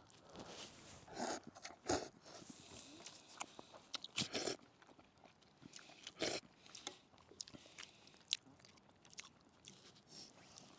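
Faint sounds of a person eating noodles: chewing and crunching mixed with scattered soft clicks, with a few louder bursts about two, four and six seconds in.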